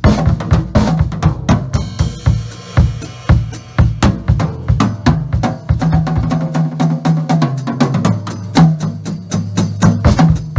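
Acoustic drum kit played in a fast solo: dense bass drum, snare and rimshot strokes. A cymbal crash comes in about two seconds in, and a low ringing pitch holds under the strokes in the second half.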